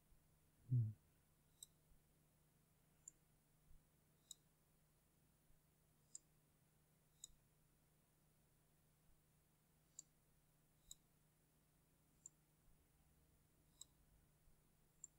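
Faint computer mouse clicks, about one a second, over a low steady hum, with one short low thump about a second in that is the loudest sound.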